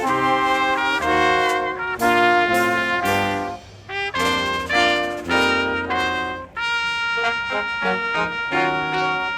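A brass band plays a Christmas carol, with trumpets and trombones moving through short note-by-note phrases. There is a brief break about halfway through, and longer held notes near the end.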